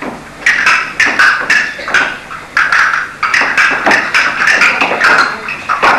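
Castanets clicking in quick runs of sharp wooden clacks, with short pauses between the runs.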